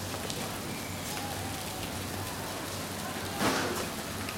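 Steady rain hiss with faint distant voices, and one short louder burst about three and a half seconds in.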